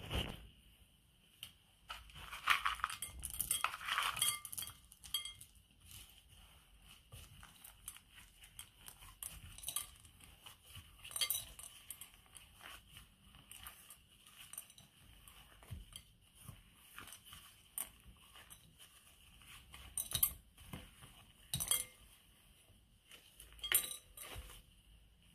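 Gloved hands mixing and kneading soft cookie dough in a glass mixing bowl: scattered small clicks and clinks against the glass, with a denser flurry a few seconds in.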